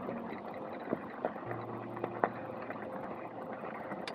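Trike rolling along a rough road: a steady rumble with many small clicks and rattles.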